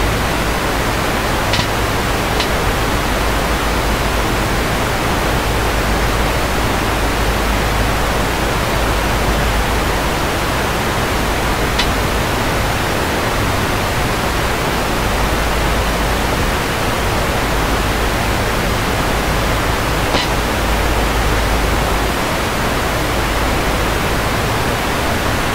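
Loud, steady hiss of electronic static noise covering the whole sound, with a few faint ticks.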